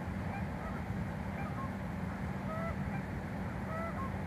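Distant geese giving scattered short honks, two clearer ones past the middle, over a steady low rumble.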